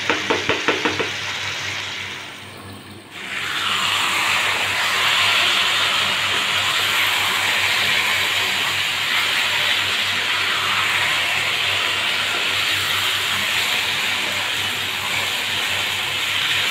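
Chicken pieces in masala sizzling in a hot frying pan as a wooden spatula stirs them. A quick run of clicks from the spatula knocking the pan comes first, then from about three seconds in a loud, steady sizzle.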